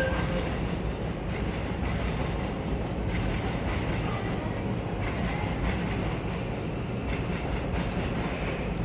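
Korail Line 4 electric multiple-unit train running, a steady rumble with wheel-on-rail noise.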